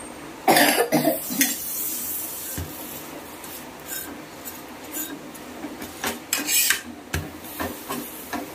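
Steel spatula scraping and clinking against an iron tawa as a buttered sandwich is pressed and pushed around on it, over a steady low hiss. The loudest scrapes come about half a second to a second in, with more scattered clicks and scrapes later.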